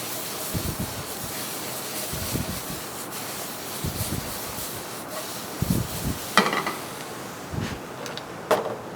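Chestnut mushrooms, ginger and spring onions sizzling in oil in a frying pan as they are stirred, with repeated scraping strokes of the stirring utensil across the pan and a few sharper knocks in the second half.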